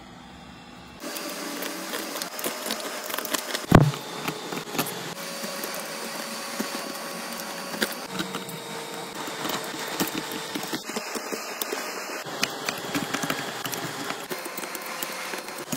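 Hot-air rework gun blowing steadily, starting about a second in, while a blade scrapes shattered back glass off an iPhone, giving many small clicks and crunches and one sharp crack about four seconds in.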